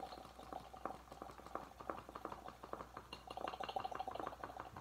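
An RC buggy shock (Losi 22-4) being pumped in and out by hand to push its old shock oil into a bottle: a quick, irregular run of small wet clicks and squelches. The owner thinks the murky oil is full of air.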